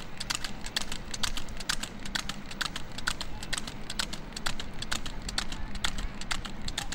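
Hooves of a trotting water buffalo bull (jhota) clicking on an asphalt road as it pulls a cart: quick, irregular clip-clop strikes, several a second, over a low steady rumble.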